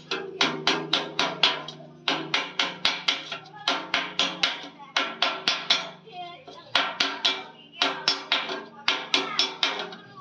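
Quick hammer blows on a metal pan, about five a second in runs of several seconds with short breaks, the pan ringing under the strikes: a tinker patching a leaking pan.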